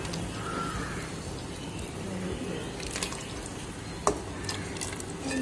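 Tomato-and-water broth bubbling at a boil in an aluminium pressure cooker as chicken pieces are dropped into it, with a single sharp click about four seconds in.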